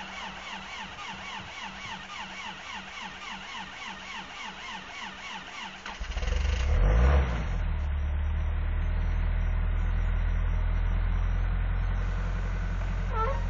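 Vehicle engine cranked by its starter in bitter cold, pulsing about three times a second. It catches about six seconds in with a brief flare of revs, then settles into a steady idle. It is a hard cold start at eight below zero, with a longer crank than usual.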